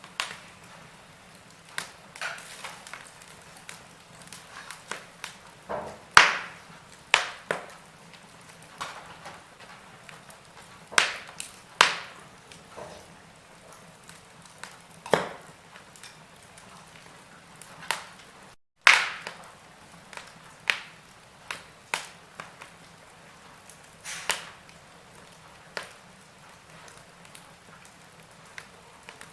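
Wood fire in a fireplace crackling: irregular sharp pops and snaps, a few of them loud, over a faint steady hiss. The sound cuts out for a split second about two-thirds of the way through.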